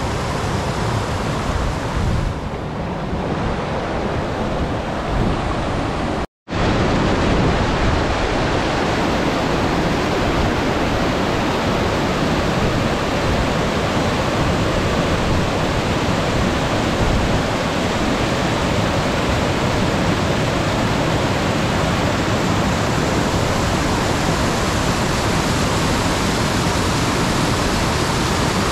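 Steady rush of fast-flowing mountain stream water cascading over rocks, with a brief cut to silence about six seconds in.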